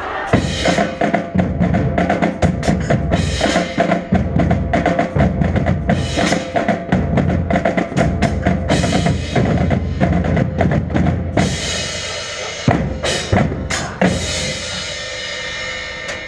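Marching band playing a percussion-heavy passage: rapid snare and bass drum strokes over steady held tones. Near the end come a few big crashes, left ringing as the passage fades.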